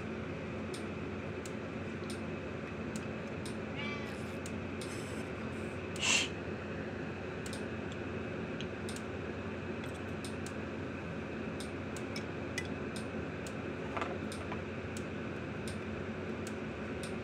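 A domestic cat meowing in short calls, a few seconds apart: a faint one about 4 seconds in, a louder, brief one about 6 seconds in, and another near 14 seconds, over a steady low room hum.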